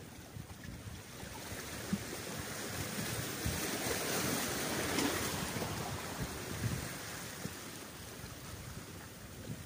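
Sea waves washing against the boulders of a rock breakwater: a swell of surf that builds over a few seconds and then fades, with wind gusting on the microphone.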